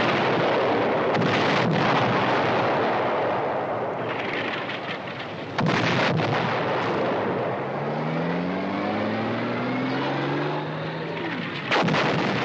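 Film battle sound effects: a continuous din of shellfire, with sharp explosions about a second in, near the middle and near the end. In the second half, a mechanical whine of several tones rises steadily in pitch under the blasts.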